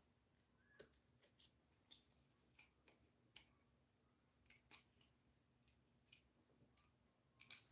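Faint, scattered crisp clicks and crinkles of small paper pieces and adhesive backing being handled and peeled, with near silence between them; the clearest clicks come about a second in, around the middle and near the end.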